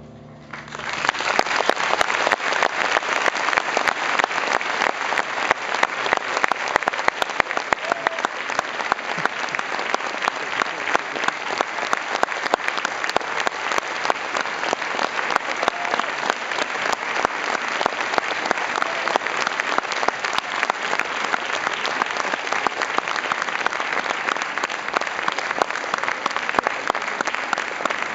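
Large audience applauding. The clapping breaks out about half a second in and keeps up steadily and densely.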